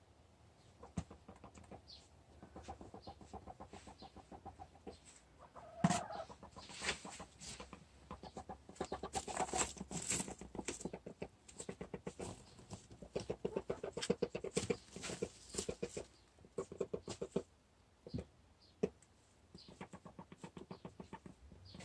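A hen making long bouts of rapid, pulsing clucks, with one sudden louder sound about six seconds in. This is the 'weird noise' whose meaning the owner doesn't know; she suspects it may be the start of broodiness.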